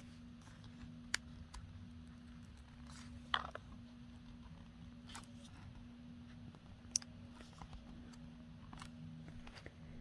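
Faint clicks and small scraping handling noises as fingers work a laptop battery cable's plug into its motherboard connector. The sharpest clicks come about a second in, about three and a half seconds in (the loudest) and about seven seconds in, over a steady low hum.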